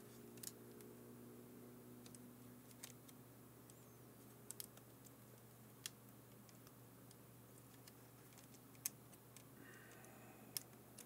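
Near silence with scattered faint small clicks of fingers handling the plastic tape mechanism of a portable cassette player while a rubber drive belt is fitted around its pulleys, over a low steady hum.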